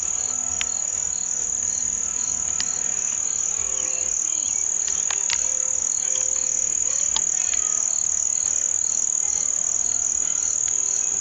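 Steady, high-pitched chorus of insects that goes on without a break, with a few faint clicks over it.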